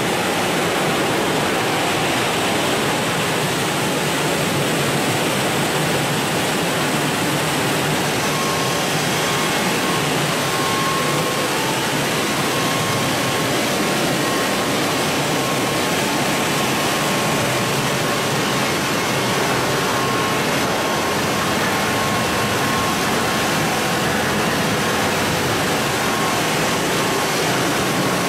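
Multi-head automatic granite polishing machine running: a steady rush of water spraying and streaming over the slabs and belt, mixed with the even drone of the machine. A faint steady tone joins about eight seconds in.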